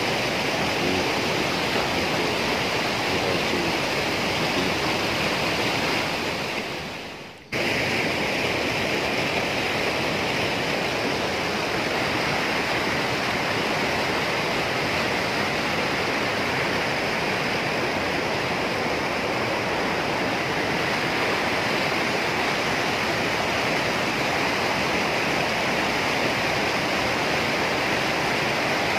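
Steady rush of water from a rocky mountain stream and small waterfall. It fades out about six seconds in and cuts back in abruptly a second and a half later, then runs on unchanged.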